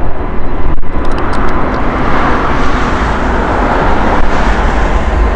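Airbus A380-861's four Engine Alliance GP7200 turbofans running at takeoff power on the takeoff roll: loud, steady jet noise over a deep rumble.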